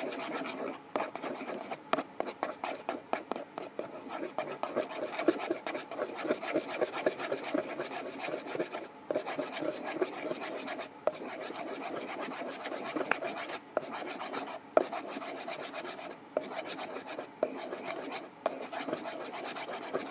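Soap slime being stirred in a bowl: rapid, continuous scraping and rubbing strokes of the mixing utensil against the bowl.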